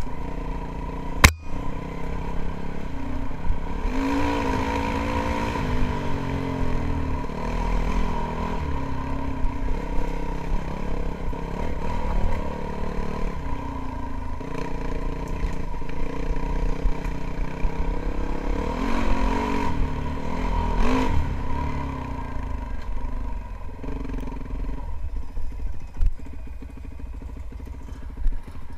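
2007 Yamaha WR450F's single-cylinder four-stroke engine pulling the bike along a dirt trail, its revs rising and falling with the throttle. A sharp knock comes about a second in. Near the end the engine drops to a lower, quieter run.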